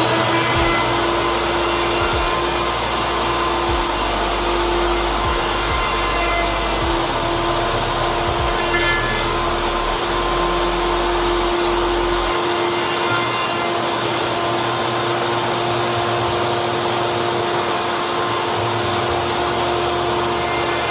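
An electric woodworking power tool running steadily with a constant whine while a wooden skateboard deck is shaped.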